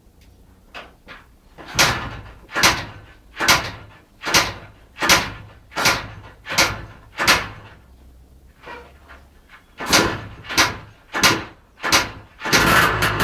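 Yamaha DT 180 two-stroke motorcycle being kick-started: a run of about eight kicks a little under a second apart, a short pause, four more kicks, and then the engine catches and keeps running near the end.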